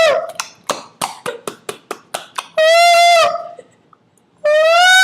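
A man's made-up mock bird call done with his voice. It is a loud, nasal, horn-like hoot held on one slightly arching pitch, then a quick run of about nine sharp clicks. A second hoot follows, and after a short pause a third begins near the end.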